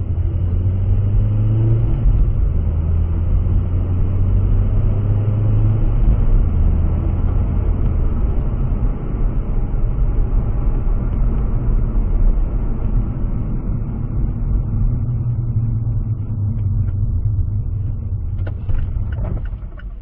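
Steady low rumble of a car driving, heard from inside the cabin: engine and road noise. Near the end a few short clicks are heard and the rumble drops off.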